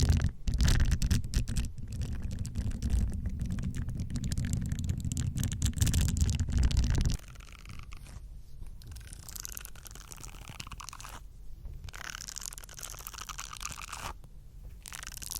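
Facial cleansing brush being brushed and scratched in dense, scratchy strokes over a heavy low rumble. About seven seconds in the rumble cuts off suddenly, leaving lighter scratchy brushing with short pauses.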